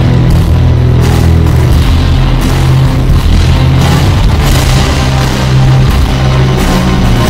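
Heavy rock wrestling entrance theme music with a heavily boosted bass end, playing loud and steady.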